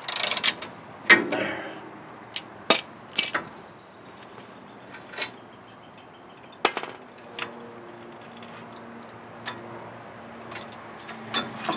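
Scattered metallic clinks and taps of steel bolts and hand tools against a truck's brake caliper as it is unbolted, a couple of them ringing briefly.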